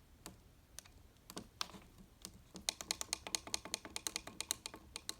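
Buttons on a DreamSky digital alarm clock radio clicking as they are pressed while setting the alarm time: a few single presses, then a quick run of about five or six presses a second from a bit over halfway through.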